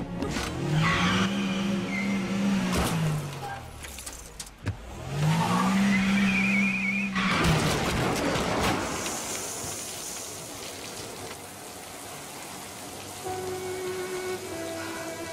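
A car engine revving up and dropping back twice, with tyre squeal, scraping and knocks as the car grinds along a wall. About eight seconds in this gives way to a steady hiss of spraying water, and music notes come in near the end.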